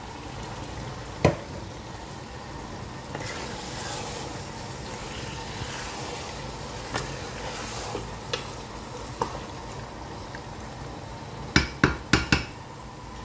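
Chicken in masala sizzling in a non-stick pot while it is stirred with a wooden spatula, with a sharp knock about a second in and a few lighter clicks. A quick run of four sharp knocks comes near the end.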